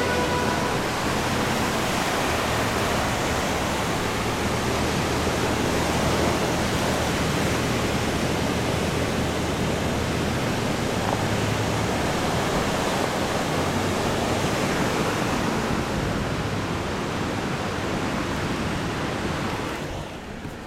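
Steady, loud rushing noise from outside a moving off-road vehicle: wind on the microphone and the river rapids alongside, over a low engine hum. The noise drops suddenly near the end.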